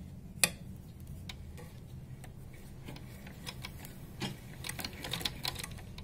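Old sewing machine clicking as it starts stitching slowly: a sharp click about half a second in, scattered clicks after it, then a faster run of clicks, several a second, near the end.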